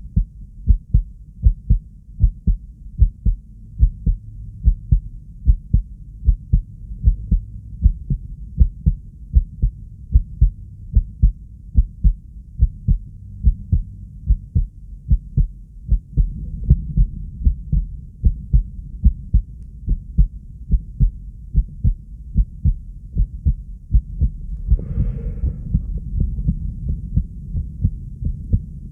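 A fast heartbeat: a rapid, even run of low-pitched thumps. A brief scratchy rustle comes in about 25 seconds in.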